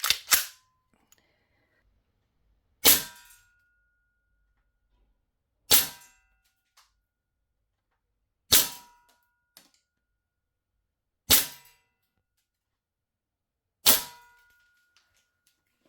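Green-gas airsoft Desert Eagle pistol firing six single shots, about one every three seconds, each a sharp crack followed by a brief faint ringing.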